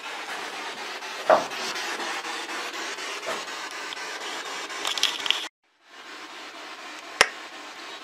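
Steady hiss of room noise with a few sharp clicks and knocks, the sharpest near the end. About five and a half seconds in, the sound drops out to silence for a moment, then the hiss returns.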